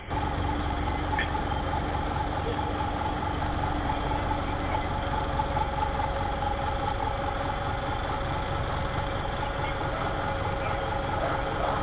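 Garbage truck engine running steadily at low revs as the truck creeps slowly past, heard through a security camera's microphone.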